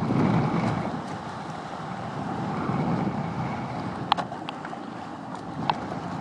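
Water rushing along the hull of a Hobie 16 catamaran under sail, mixed with wind buffeting the microphone. A few light clicks come in the last couple of seconds.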